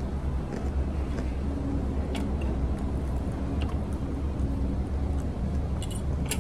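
A steady low rumble, with a few light clicks and rustles from hands handling a paper-wrapped sandwich.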